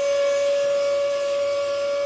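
Small motor running with a steady, high-pitched whine that holds one pitch.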